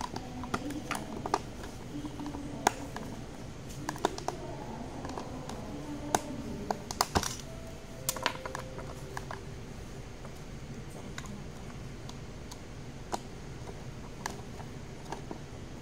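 Irregular small clicks and taps of a screwdriver and hard plastic parts as a grip is screwed onto a Glock carbine conversion kit. The clicks come thickest in the first half and thin out after that.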